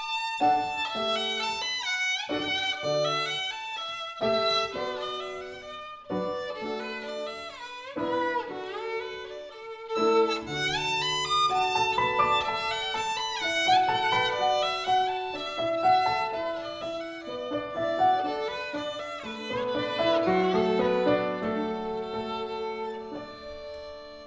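Violin and Steinway grand piano duo: the violin plays a lyrical melody with slides between notes over piano accompaniment, growing quieter near the end.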